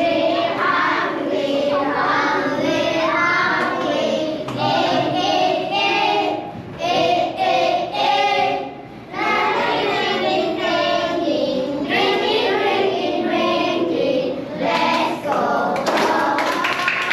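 A group of children singing together in a song led by their teacher, with hand claps joining in near the end.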